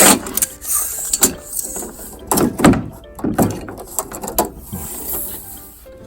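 Irregular knocks, clicks and light scrapes of hand work on a wooden door, about a dozen in all, the loudest around two and a half seconds in; no power tool is running.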